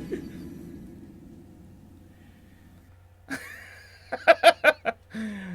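The last note of the song fades away over the first few seconds. Near the end, a person laughs in a quick run of about six short bursts.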